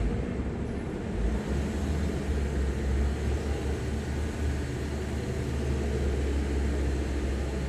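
2017 Toyota Corolla engine running at a standstill with a steady low rumble, while the scan tool's cylinder misfire counts are watched. No misfire shows up while it stands.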